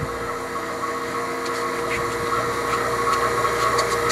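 HVAC vacuum pump running with a steady hum, pulling brake fluid out of the caliper bleeder into a mason-jar vacuum chamber. Near the end, light rapid ticking, about five a second, joins it.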